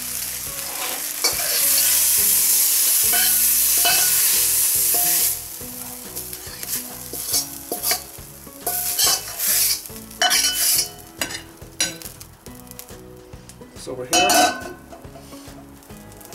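Hot stir-fry sizzling in a carbon steel wok, loudest for a few seconds near the start. Then a wok spatula scrapes and knocks against the metal pan as the food is pushed out onto a plate.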